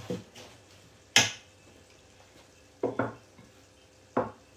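Spoon stirring in a metal mixing bowl, knocking against its side: a few sharp clanks, the loudest about a second in, a quick pair near three seconds and one more near the end.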